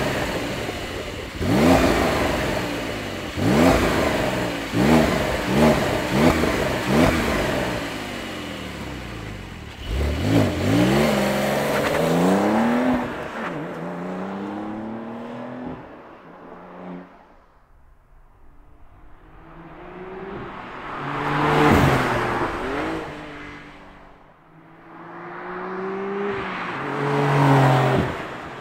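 Porsche 911 Carrera T's 3.0-litre twin-turbo flat-six revved through its sport exhaust: a quick string of throttle blips for the first several seconds and a longer rev about ten seconds in. It then drops back to a quieter idle before two slower rising revs near the end.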